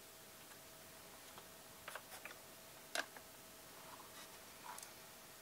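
Faint small clicks and taps from hands working a soldering iron on a circuit board, then picking the board up. The sharpest click comes about three seconds in, over a faint steady thin whine.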